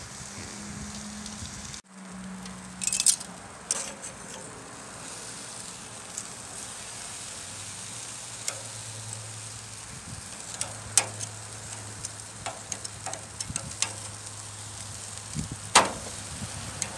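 Bone-in steak sizzling on a charcoal grill grate, a steady hiss broken by scattered sharp crackles and pops, with one louder pop near the end.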